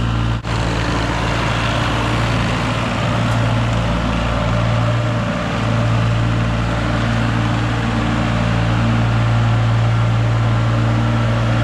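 Loader with a broom attachment running its engine at a steady speed, giving a constant low engine hum with a noisy wash over it as it smooths out the ground.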